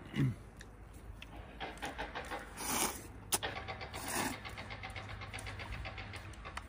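A man slurping noodles from a bowl held to his mouth: two slurps about a second and a half apart, after a short grunt. A steady low hum runs underneath.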